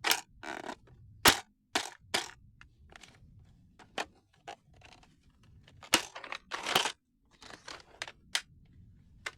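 Irregular plastic clicks and snaps from an X-Shot toy dart blaster being handled and worked while a dart is forced into it, with a longer scrape of plastic about six to seven seconds in.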